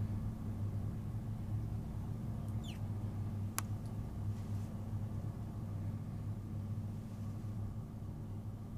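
Steady low hum through a quiet room, with a short high squeak falling in pitch about two and a half seconds in and a single sharp click about a second later.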